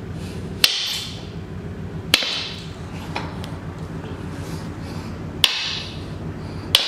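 Claw hammer striking an eSun Hard Tough (ABS-like) resin 3D-printed bust on a concrete floor: four sharp hits at uneven gaps of one to three seconds, each with a short bright ring-out.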